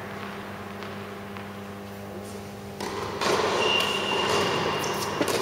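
Tennis rally on an indoor court: a steady hum in a large hall, with a rise in noise about three seconds in and a sharp racket strike on the tennis ball near the end.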